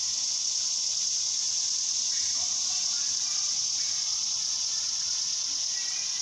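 Steady high-pitched background hiss, with nothing else clearly standing out.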